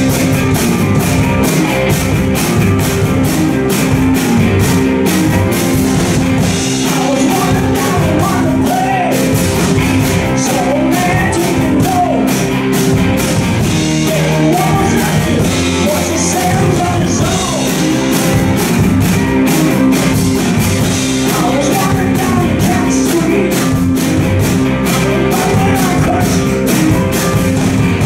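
Live rock band playing with two electric guitars, bass guitar and drum kit over a steady beat.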